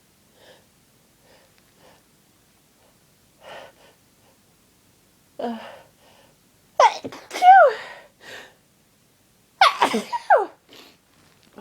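A person with a head cold sneezing loudly in a fit: quiet sniffs and breaths, a sharp intake of breath, then two bursts of loud voiced sneezes, each cry falling in pitch, about halfway in and again near the end.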